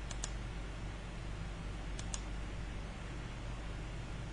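Computer mouse clicks: a quick double click just after the start and another about two seconds in, each a pair of sharp ticks, over a low steady hum.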